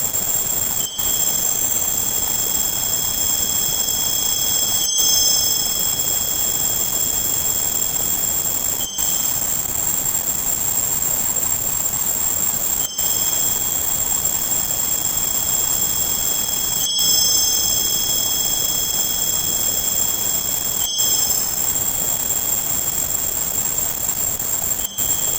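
Tinnitus-masking sound: a steady hiss of noise with several high, steady tones on top. A brief dropout comes every four seconds, and the set of high tones changes at those moments.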